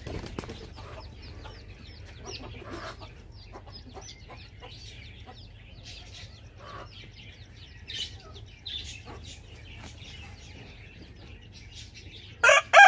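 Faint scattered bird chirps and short calls, then near the end a rooster starts a loud crow.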